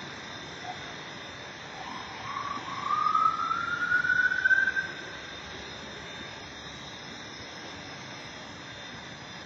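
Electric 450-size RC helicopter hovering with a steady rotor and motor noise. About two seconds in, its whine climbs in pitch and grows louder for about three seconds, then fades back to the steady hover sound.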